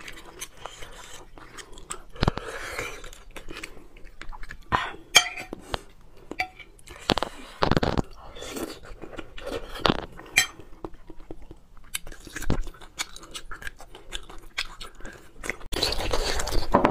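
Close-miked eating of bone marrow: a spoon scraping and clicking inside a braised bone, then wet chewing and mouth smacks, in scattered short clicks. About a second before the end the sound turns louder and denser.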